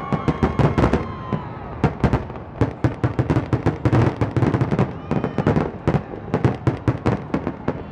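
Fireworks display: aerial shells launching and bursting in a rapid, unbroken run of sharp bangs and crackles, several every second.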